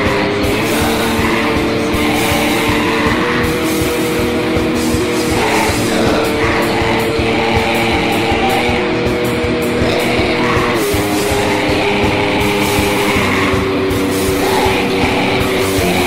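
Black metal recording: distorted electric guitars hold chords that change every few seconds over rapid, dense drumming.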